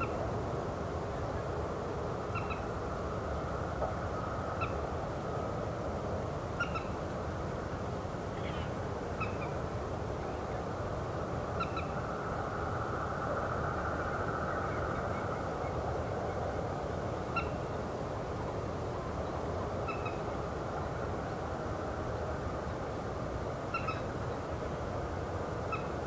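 Water birds giving short, honking calls, one at a time and irregularly about a dozen times, over a steady low background rush.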